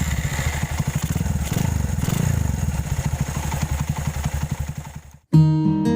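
Motorcycle engine running with a fast, even low pulsing, fading away about five seconds in. Acoustic guitar music starts near the end.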